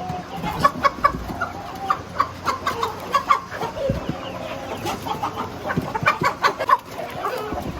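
Shamo chickens clucking, many short clucks in irregular quick succession from several birds.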